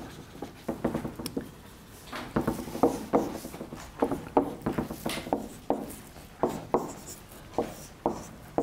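Marker pen drawing on a whiteboard: a run of short, squeaky strokes as lines and letters are drawn.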